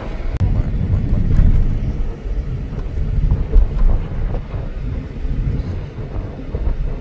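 Low, steady rumble of a car driving along a road, heard from inside the cabin, with wind buffeting the microphone.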